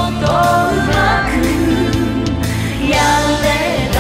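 Pop song with female vocals singing over a full band backing.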